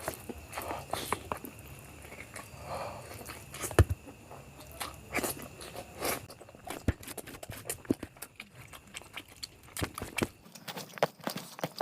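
Close-miked chewing and mouth sounds of someone eating biryani: frequent small wet clicks and smacks, with a couple of sharper knocks about 4 and 7 seconds in.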